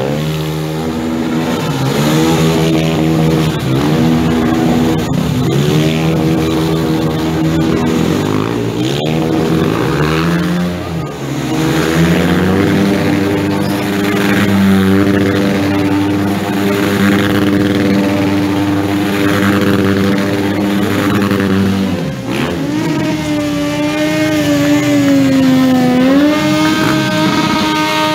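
Motorcycle engine revved up and down in repeated blips, then held steady at high revs for about ten seconds as the rear tyre spins in a smoking burnout. About 22 seconds in the sound changes abruptly to another motorcycle engine held at high revs in a burnout, its note dipping and then climbing again.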